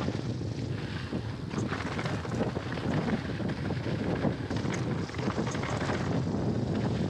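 Mountain bike rolling down a dry dirt trail: wind buffeting the action camera's microphone over the rumble of the tyres, with frequent small rattles from the bike over bumps.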